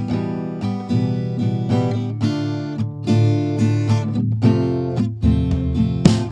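Background music: acoustic guitar strumming.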